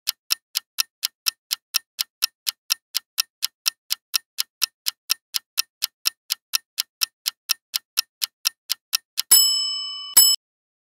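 Clock-ticking countdown timer sound effect, about four ticks a second, ending about nine seconds in with a bright ringing chime and a second short chime just after, as the answer is revealed.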